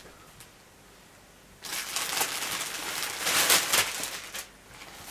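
Clear plastic polybag crinkling and rustling as hands pull a fleece out of it, starting about one and a half seconds in and dying away near the end.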